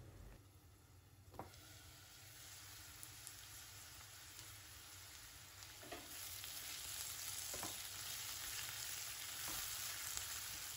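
Ivy gourd pieces in spiced oil sizzling faintly in a nonstick pan, louder from about six seconds in as they are stirred, with a few light clicks against the pan.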